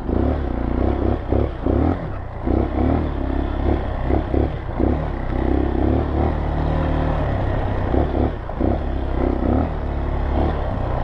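Honda CRF230L trail bike's single-cylinder four-stroke engine running under way, its note rising and falling again and again as the throttle is rolled on and off.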